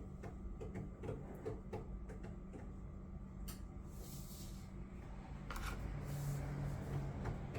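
Fingers pressing and rubbing on a tempered glass screen protector over a smartwatch face to push out the air bubbles: a quick run of light clicks and taps, one sharper click, then rubbing and scraping noises.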